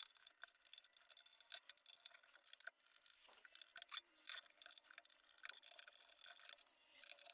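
Faint, irregular small clicks and taps from handling a relay module and its wires while trying one connection after another.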